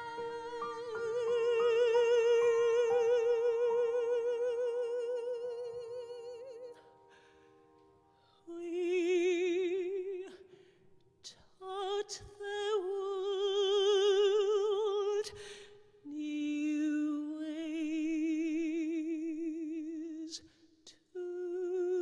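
A woman singing a show-tune ballad with grand piano accompaniment, holding long notes with wide vibrato. The first note is held for about six seconds; after a short break, more long notes follow.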